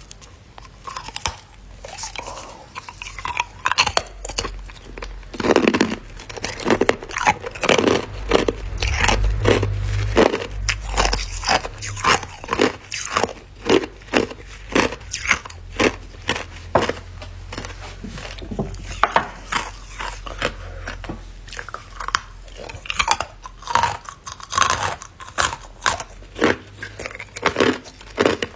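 Ice being bitten and chewed close to the microphone: a rapid, irregular run of sharp crunches as hard and crushed ice cubes crack between the teeth.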